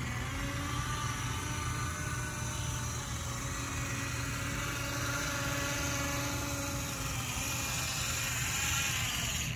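Small electric motor and homemade 156:1 gear train of an HO-scale model locomotive whirring steadily at full speed as it runs along the track.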